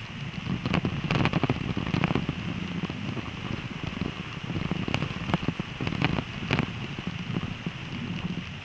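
Car driving over snow-covered ice on studless Continental ExtremeWinterContact winter tyres: a steady rumble of tyres on packed snow, with irregular crackling clicks and knocks throughout.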